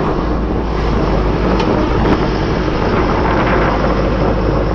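Sandblasting air compressor running steadily, a constant low hum under a loud even rushing noise.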